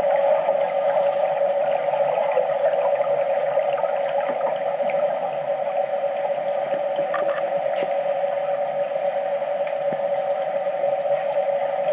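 Underwater swimming-pool ambience picked up by a submerged camera: a steady mid-pitched hum with scattered faint crackles and bubble sounds.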